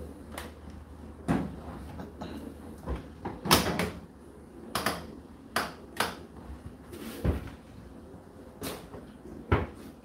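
A series of knocks and clicks as the door of an Indesit condenser tumble dryer is pushed shut and its control-panel buttons and dial are worked. The loudest knocks come about three and a half seconds in.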